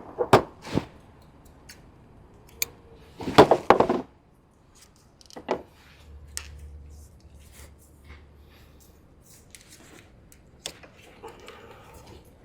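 Scattered clicks, knocks and rustles of hand work with tools and parts, with a louder clatter at about three seconds in.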